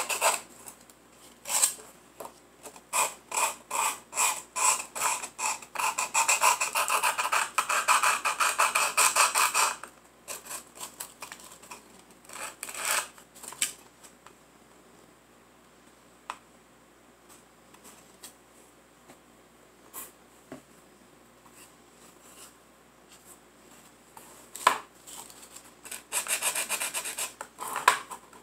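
Sandpaper rubbed back and forth by hand over a small wooden dollhouse stove part, fast scratchy strokes for about the first ten seconds. A quieter stretch follows with a few light taps, then a short burst of sanding again near the end.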